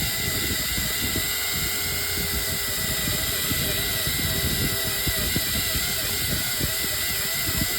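Electric fishing reel's motor whining steadily as it winds in line, with gusts of wind buffeting the microphone.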